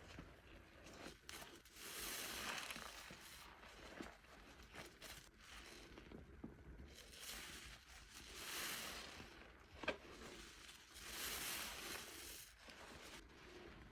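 Thick soap foam being worked and squeezed: wet, crackly hissing that swells and fades several times, with a few small clicks and pops.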